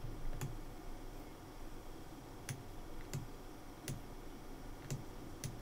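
Scattered single clicks of a computer mouse and keyboard, about seven at irregular intervals, faint over a steady low room hiss.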